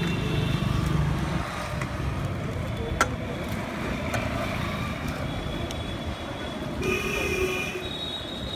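Street traffic noise, a steady low rumble, with one sharp click about three seconds in and a brief high-pitched tone near the end.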